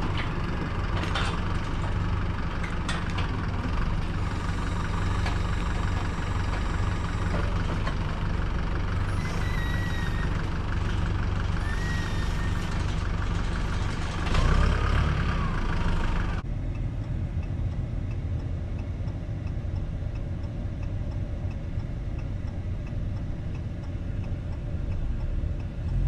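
A vehicle engine running steadily with a constant low drone. About two-thirds of the way through, the sound changes abruptly and turns duller.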